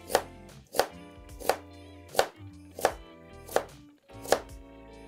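Kitchen knife slicing through a raw carrot onto a plastic cutting board: seven sharp chops at an even pace, about one every 0.7 seconds. Soft background music plays underneath.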